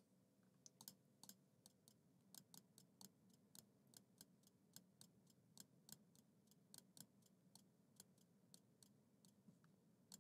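Faint computer mouse clicks, irregular at about three a second, as shapes are selected one after another; otherwise near silence.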